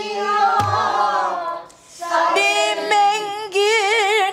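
A woman singing a pansori phrase in full voice with a wide, shaking vibrato, in two phrases with a short breath between them. A buk barrel drum is struck once with a stick about half a second in.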